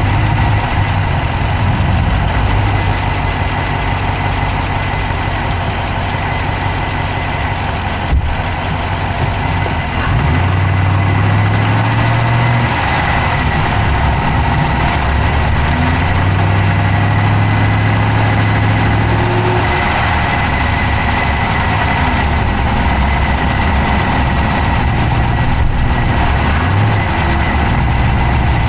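Dodge Charger's Hemi V8 idling, heard from inside the engine bay, with a fast clicking from the engine running through the idle. The low engine note shifts a couple of times, and there is one sharper click about 8 seconds in.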